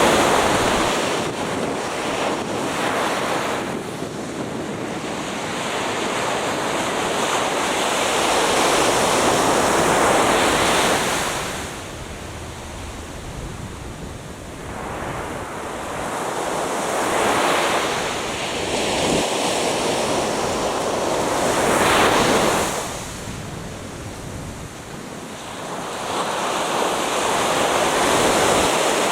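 Atlantic Ocean surf breaking and washing up a beach in a series of surges, each loud for a few seconds and easing off between them.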